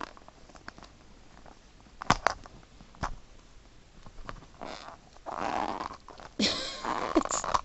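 Plastic Mini Brands capsule ball being twisted and prised apart by hand: a few sharp clicks, then a longer stretch of plastic rubbing and scraping as the stiff halves resist opening.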